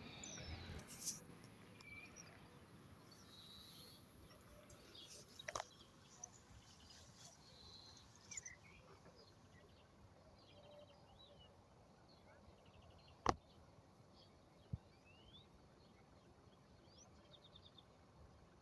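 Faint bird chirps and short trills, with a few sharp clicks, the loudest about thirteen seconds in.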